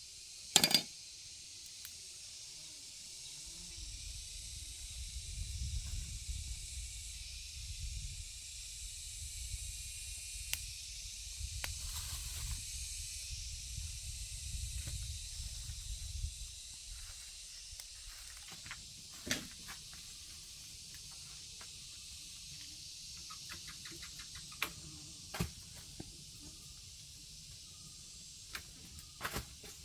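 Steady high hiss throughout, with a low rumble from about four seconds in until about seventeen seconds, and a few sharp knocks, the loudest one just under a second in.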